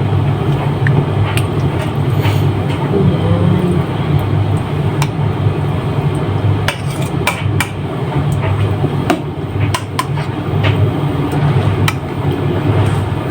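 A steady low hum with scattered sharp clicks and taps of kitchen utensils on a dish, as mustard is spread over raw chicken breasts.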